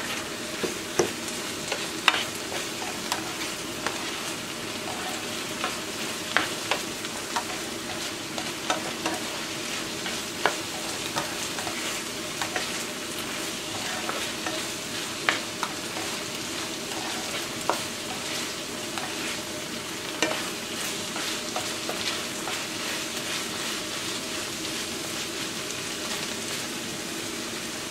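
Ground beef and garlic sizzling steadily in a nonstick frying pan while being stirred with a plastic spatula, which scrapes and taps against the pan in frequent sharp clicks. The beef is already browned, with no red left.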